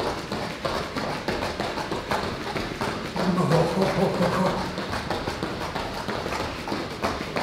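Bare feet of two people running in place with high knees on gym mats, landing in a quick, even rhythm of soft thuds. About three seconds in, a voice sounds briefly over the footfalls.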